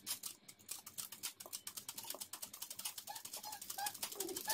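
Ordinary domestic sewing machine stitching, its needle making a rapid, even ticking of about a dozen strokes a second as it fills in a satin-stitch embroidery petal.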